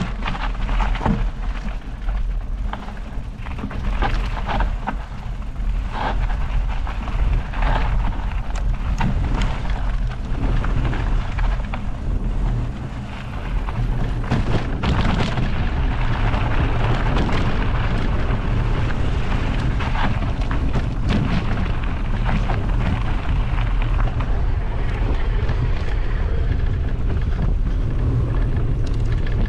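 Wind buffeting the microphone on a moving bicycle, a loud low rumble and rush. Through the first half, frequent knocks and rattles come from riding over a stony dirt track. After that the rush turns steadier.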